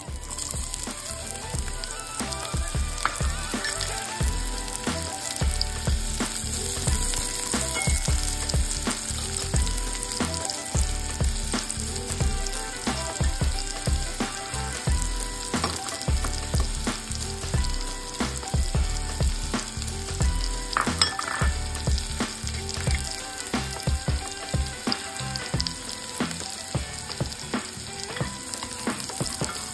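Sliced shallots and minced garlic sizzling as they fry in rendered pork fat in a pan: a steady crackling hiss.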